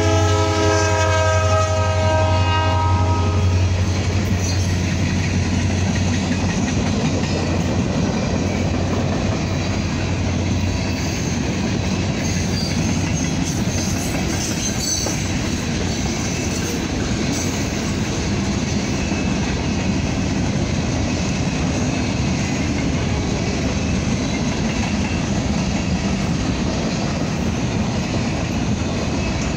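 Freight train passing close by. The locomotive's horn chord trails off in the first few seconds. Then comes the steady rumble and clatter of freight cars rolling past.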